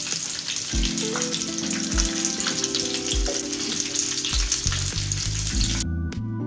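Hot oil sizzling steadily around breaded chicken lollipops deep-frying in a pan, over background music with a steady beat. The sizzle cuts off suddenly near the end, leaving only the music.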